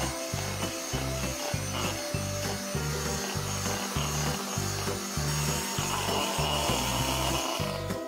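Butterfly electric hand mixer running, its beaters churning butter and icing sugar against a stainless steel bowl while creaming them pale. It stops just before the end.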